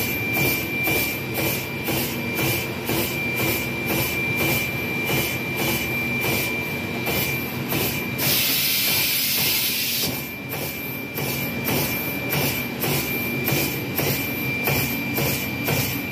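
Amada LC1212 punch-laser combination machine working a metal sheet: a steady high whine with regular knocks about two or three times a second, and a hiss for about two seconds near the middle.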